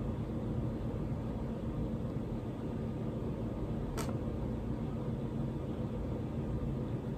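Steady low background hum with one sharp click about four seconds in.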